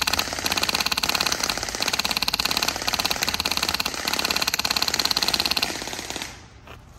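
Custom HPA-powered airsoft M1919 replica with a Wolverine Inferno engine firing full-auto: a long, rapid, even string of sharp pneumatic shots that stops abruptly about a second before the end.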